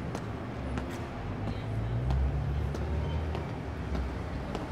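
Street traffic: a motor vehicle's low engine rumble swells as it passes, loudest about two seconds in, then eases off. A few faint clicks sound over it.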